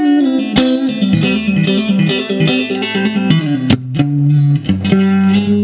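1965 Fender Stratocaster electric guitar being played: picked notes and chords with sharp pick attacks, some notes bending in pitch, then low notes left ringing from about four seconds in.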